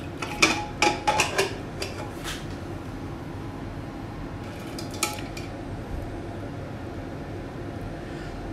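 Aluminium pressure cooker lid being worked free and lifted off, its pressure already let down: a quick run of metal clanks and clicks in the first two seconds or so, then a few lighter metal clinks about five seconds in.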